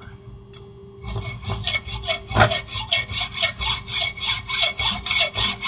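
Hand strokes of a metal-cutting tool rasping back and forth across a steel bolt head held in a vise, cutting a screwdriver slot. The strokes start about a second in and go on steadily at roughly two to three a second.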